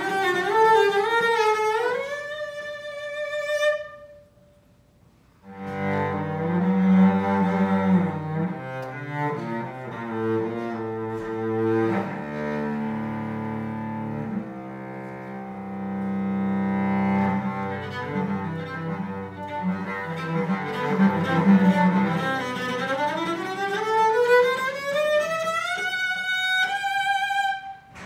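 Solo bowed cello playing a slow piece. A note slides upward with vibrato and breaks off, and after a short pause about four seconds in come held notes sounding together over a low note. Near the end a long upward slide with vibrato cuts off sharply.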